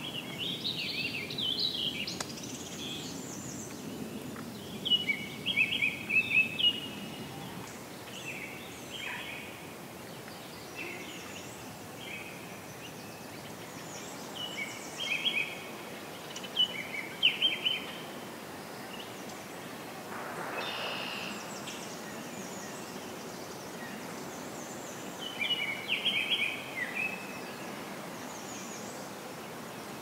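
Songbirds singing short, repeated song phrases every few seconds over a steady outdoor background hiss, with a brief rush of noise about two-thirds of the way through.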